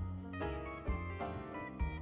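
Background music: an instrumental tune with a steady beat, in a light jazz style.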